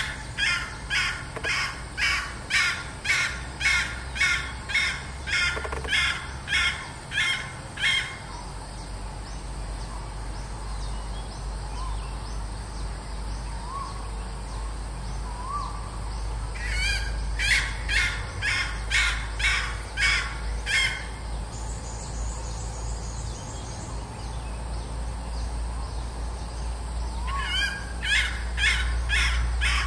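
A red junglefowl hen calling: bouts of sharp, evenly repeated notes at about two a second. One long bout opens, a shorter one comes midway and another starts near the end. This is the hen's repeated call that draws wild cocks to a decoy hen.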